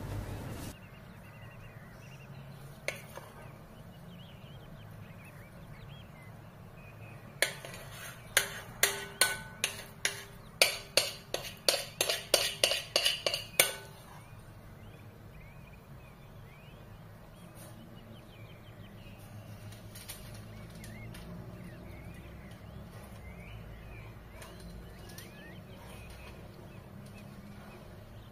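A metal spoon tapped repeatedly against a glass mixing bowl to knock off cake batter: a run of about fifteen sharp clinks, some three a second, lasting about six seconds.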